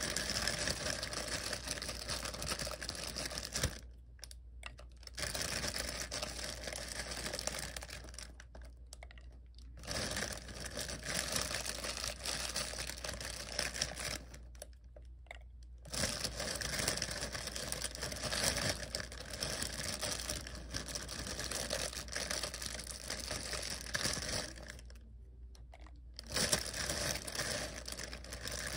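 Plastic bag crinkling and rustling as small glitter ornament balls are picked out of it, in long stretches broken by four short pauses.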